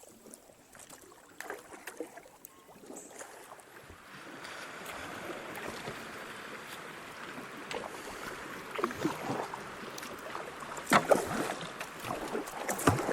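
Kayak on a creek: water rushing, swelling from about four seconds in as a riffle nears, with a few sharp splashes and knocks of paddle strokes later on.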